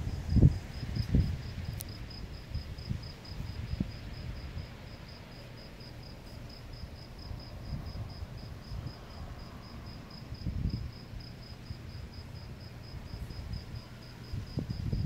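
A cricket chirping steadily in an even, high-pitched pulse of about three chirps a second, over low, uneven rumbles from wind or distant thunder.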